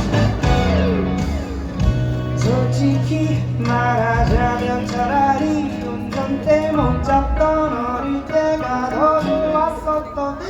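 Live band playing an upbeat pop-rock song: strummed guitars, bass and drums, with a sung melody over them.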